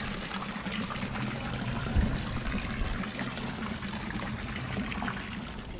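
Fountain water pouring from a spout and splashing into a stone basin, a steady trickling splash. A brief low thump about two seconds in.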